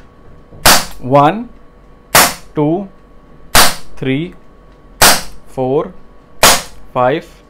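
Crosman SNR357 CO2 revolver firing .177 lead pellets: five sharp shots, evenly spaced about a second and a half apart.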